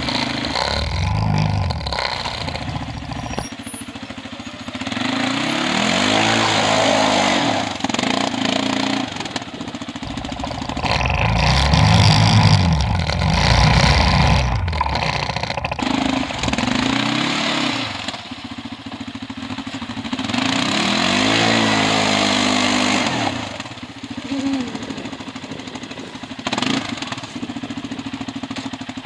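ATV engine revving hard in repeated long surges, its pitch rising and falling as the throttle is worked, while the quad climbs in and out of a muddy ditch under heavy load.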